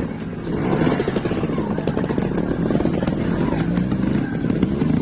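Trials motorcycle's single-cylinder engine revving under throttle as the bike climbs an obstacle, getting louder about a second in.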